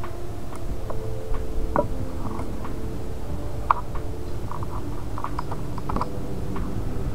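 Light, irregular clicks and scrapes from a soldering iron tip being worked in a brass-wool tip cleaner, over a steady low hum.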